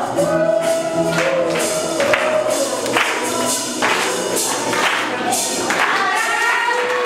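A group of voices singing a song together in chorus, with held notes, over a steady beat of hand claps about once a second.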